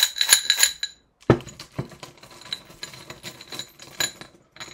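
Small metal objects jingling in a quick run of ringing clinks for about a second, then a single thump and a stretch of light clattering and rustling of small objects being handled on a table.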